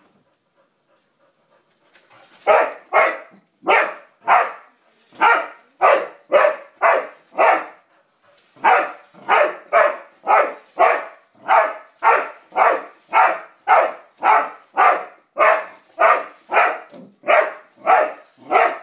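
Dog barking repeatedly at a toy car, about two short barks a second. The barking starts about two seconds in and breaks off once briefly near the middle.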